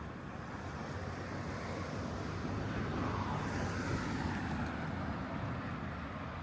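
A car driving past on the street, its engine and tyre noise growing louder to a peak about four seconds in, then fading away.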